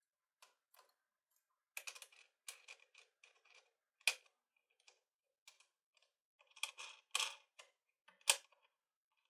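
Irregular small clicks, ticks and scrapes of thin copper winding wire being handled and threaded through the rollers and felt pad of a wire tensioner, with sharper snaps about four, seven and eight seconds in.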